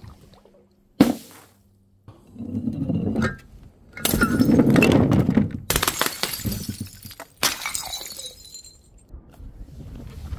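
Glass breaking and shattering: one sharp smash about a second in, then a run of longer crashes of breaking glass and tumbling shards, loudest around four to five seconds.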